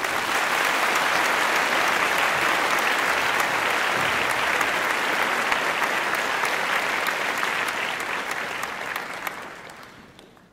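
Audience applauding: dense, steady clapping that fades out near the end.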